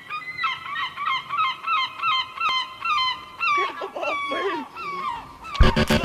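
Gulls calling: a quick run of repeated yelping calls, about two or three a second, with lower-pitched calls joining in over the middle. Shortly before the end, loud distorted grindcore music with rapid drumming cuts in.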